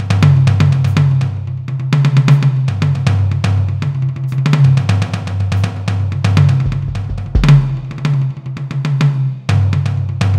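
Music with a fast, busy drum-kit beat of bass drum, snare and cymbals over a low bass line.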